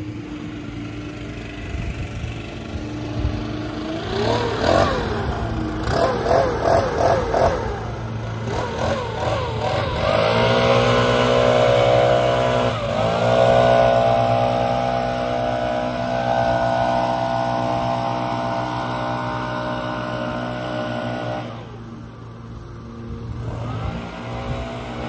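Gas backpack leaf blower engine revved in several quick up-and-down blips, then held at full throttle for about ten seconds before dropping back to idle, and rising again near the end. A steadier, lower engine drone runs beneath it.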